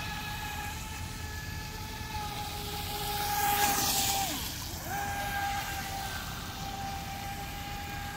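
Electric motor of an MFT Vector SR48 radio-controlled speedboat whining at a steady high pitch as it runs at speed. A rush of water noise swells as the boat passes close, about three and a half seconds in; just after, the whine falls in pitch and stops for about half a second, then picks up again.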